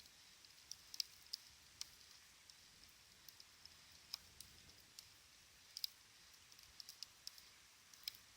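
Small wood campfire crackling, with irregular sharp pops and ticks coming a few times a second at uneven spacing.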